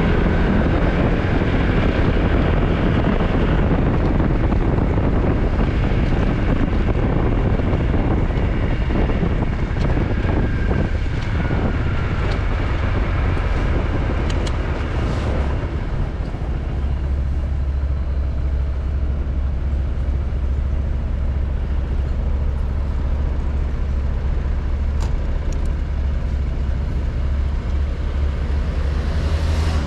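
Motorcycle engine running under the rider, its pitch rising and falling in the first half, then settling into a steady low hum from about halfway through.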